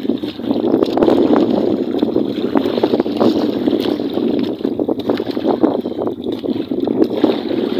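Steady rushing noise aboard a small fishing boat, with wind buffeting the microphone and many small knocks and crackles.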